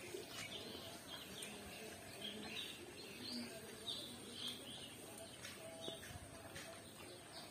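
Small birds chirping faintly, short calls repeating about twice a second over a soft outdoor hush.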